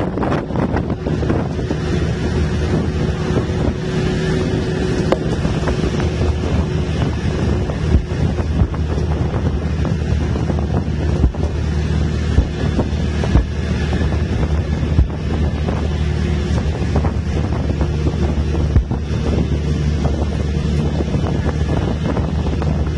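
Bus engine running with a steady low drone, mixed with wind buffeting the microphone held out of the open window. A few brief knocks are heard along the way.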